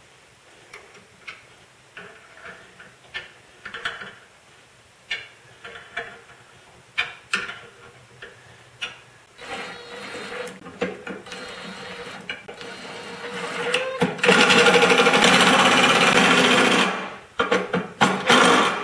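Cordless drill boring into the steel jaw of a bench vise, running in short slow bursts at first, then at full speed for about three seconds before it stops. Light metal clinks and knocks of tools being handled come before it.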